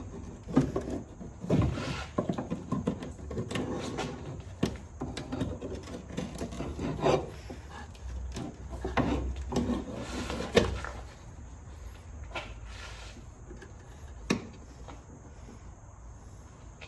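Irregular knocks, clanks and scraping of hands, tools and parts being handled during work under a car, thick for the first two thirds and sparser after, with one sharp knock near the end.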